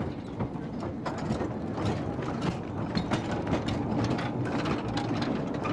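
Miners' tramway train in a slate mine rattling along its narrow-gauge rails: a dense, steady clatter of clicks and knocks.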